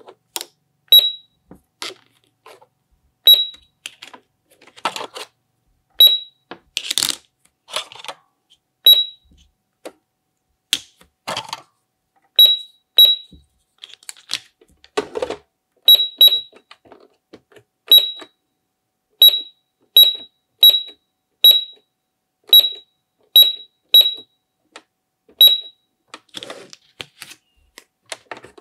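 Peppa Pig toy supermarket cash register's handheld scanner beeping as plastic toy food is scanned: about eighteen short, high electronic beeps at irregular intervals. Between them come the clicks and clatter of hard plastic toy food and parts being handled.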